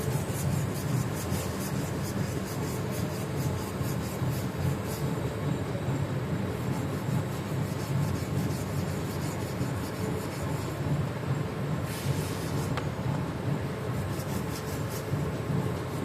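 Quick, repeated rubbing or scraping strokes on a magnetic powder brake part where the powder has caked into a hard layer, over a steady low hum. The strokes are dense in the first few seconds, ease off, and come back near the end.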